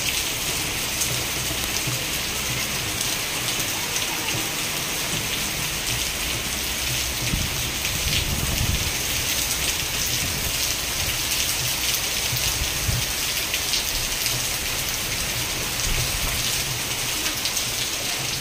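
Heavy rain falling steadily in a downpour, a dense, even hiss.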